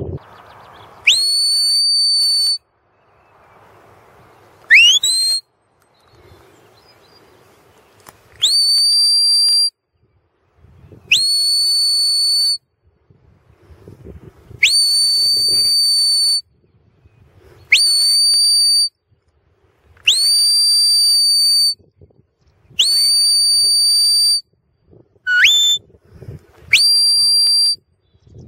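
Shepherd's whistle commands to a working border collie herding sheep: about ten high, piercing blasts. Most sweep up quickly into a long steady note held for a second or more, and two are short, sharp upward chirps.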